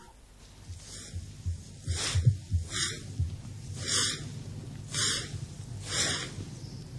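A broom sweeping in steady strokes, a swish about once a second, with soft low thumps beneath.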